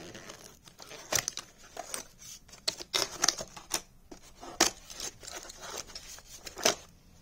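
Cardboard packaging scraping and rustling as a rubber-cornered diagnostic interface is lifted out of its box and handled, with irregular knocks and rubs against the cardboard. The loudest knocks come about halfway through and near the end.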